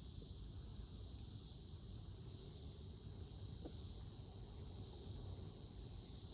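Faint, steady high chirring of crickets over a low rumble.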